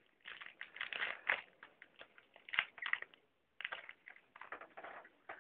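Trading cards being flipped through and slid against one another, in irregular rustling and flicking strokes.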